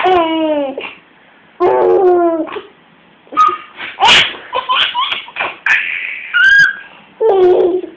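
A baby laughing in long squeals that fall steeply in pitch, with short, steady high notes from a plastic recorder in between.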